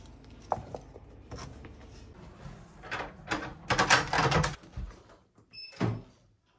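Keys picked up with small clicks and rattles, then a front door's metal lever handle and latch worked and the door pulled open, the loudest clatter about three to four and a half seconds in. Near the end comes a thump and a short electronic beep.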